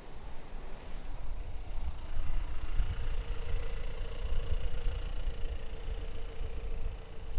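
A car passing close by at low speed, its steady hum strongest in the middle.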